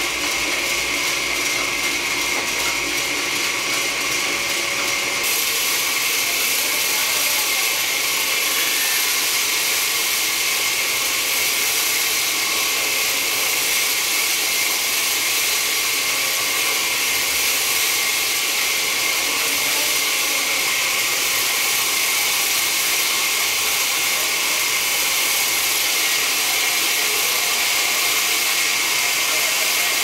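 Large horizontal band sawmill running, its blade cutting through a huge log with a steady high-pitched hiss.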